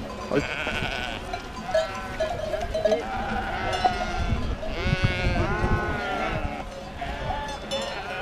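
A large flock of sheep bleating, many calls overlapping one another without a break.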